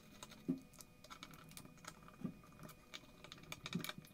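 Hand hex screwdriver tightening small screws into a carbon-fibre drone frame: faint, irregular light clicks and ticks of metal on screw and plate, with three soft knocks of the tool against the frame.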